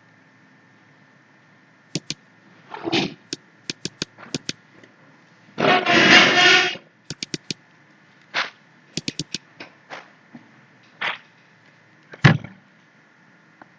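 Computer mouse clicking, with several quick double-clicks as folders are opened. Short scraping or rubbing noises fall between the clicks, the loudest lasting about a second midway.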